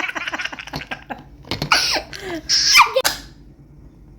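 A young child laughing: quick bouncy laughs, then two breathy high squeals of laughter, stopping about three seconds in.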